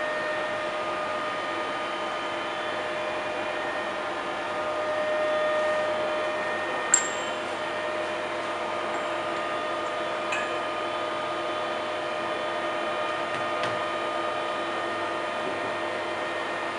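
Deckel FP4 NC milling machine running: a steady motor hum with a few held whining tones, swelling briefly about five seconds in, with a sharp click about seven seconds in and a couple of fainter clicks later.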